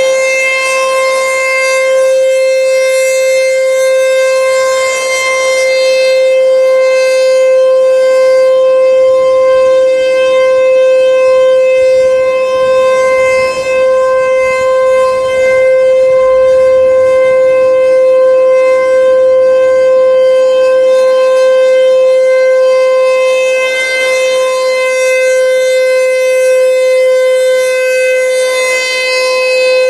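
American Signal T-128 rotating siren sounding a steady full-alert tone. Its pitch holds level, and the sound swells and dips a little as the horn head turns.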